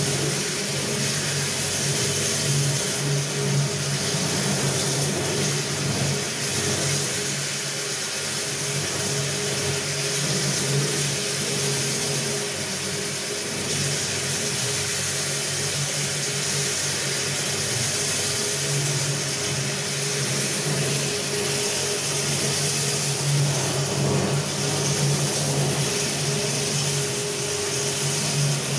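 Electric marble floor polishing machine running steadily as its pad works the wet stone: a constant motor hum over an even grinding hiss.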